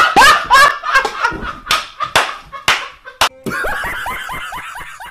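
A man laughing hard in loud, sharp bursts, a few per second, turning quicker and fainter near the end.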